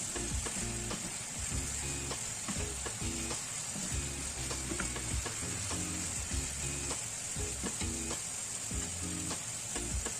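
Bitter gourd stir-frying in a hot pan: a steady sizzle, with frequent clicks and scrapes from the stirring utensil against the pan.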